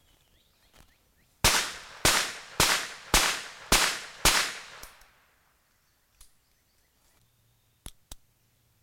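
Webley & Scott Mark IV top-break revolver in .38 S&W fired six times in quick succession, about two shots a second, each shot trailing off briefly. Near the end, two sharp clicks.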